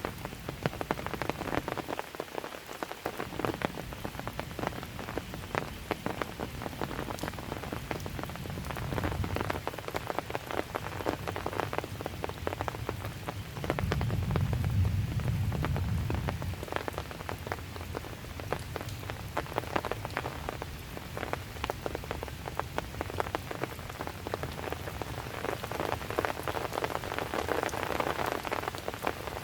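Calm, steady rain falling, with many separate drops ticking sharply against nearby surfaces. About halfway through, a low rumble swells for two or three seconds and then fades back under the rain.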